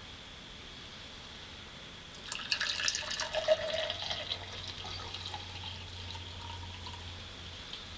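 Hot tea poured out of a billy can: a splashy pour starts about two seconds in and runs on more quietly before trailing off.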